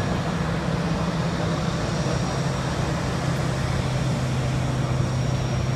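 Steady roar of a jet airliner's engines running on the apron, with a low hum that drops slightly in pitch about two seconds in and a faint high whine.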